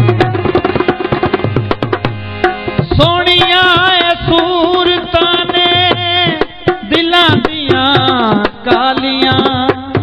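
Instrumental interlude of Punjabi folk music: tabla keeping a steady rhythm under sustained harmonium chords, with a wavering, ornamented lead melody coming in about three seconds in.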